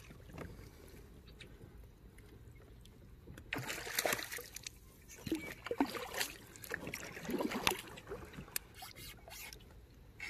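Water splashing and sloshing beside a kayak in several short bursts, with a few sharp clicks and knocks.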